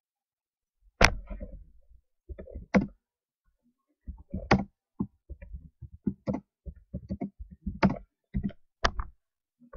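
Computer keyboard typing: irregular keystrokes in short runs with pauses between them, the loudest strike about a second in.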